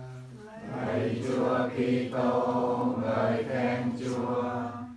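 A group of people chanting a prayer together in unison on steady, held pitches, in the sung recitation style of Vietnamese Catholic prayer. A single leading voice swells into the full group about half a second in.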